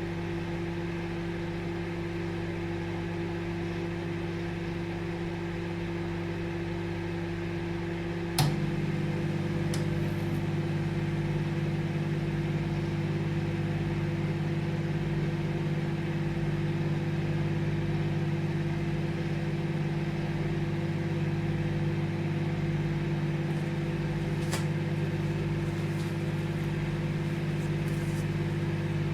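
Microwave oven running with a steady hum. A sharp click comes about eight seconds in, after which the hum is slightly louder, and there are a few faint ticks later on.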